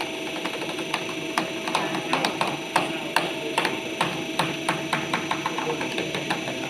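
CNC aluminium arch-bending machine running with a steady hum, with many irregular sharp clicks and taps throughout.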